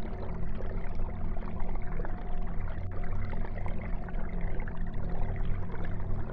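Aquarium filter running: a steady pour and trickle of water over a low, constant hum.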